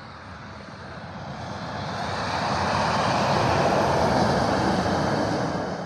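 Tractor-trailer passing on the highway: a rush of engine and tyre noise that builds over about three seconds, holds, then falls away quickly near the end.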